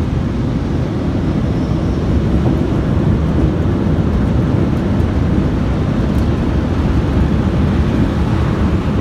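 Automatic car wash equipment running around the car, a loud steady rumble muffled through the car's cabin, getting a little louder about two seconds in.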